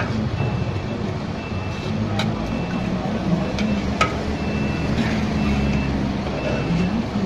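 Street-side vehicle engine running steadily, with a high electronic beep repeating at intervals, like a reversing alarm, and a few sharp clicks.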